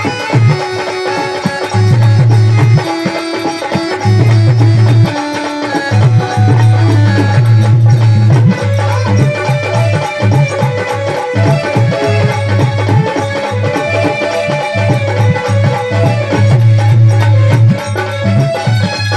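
Instrumental break in a Punjabi devotional bhajan: a melody line over a steady drum beat with heavy bass, and no singing.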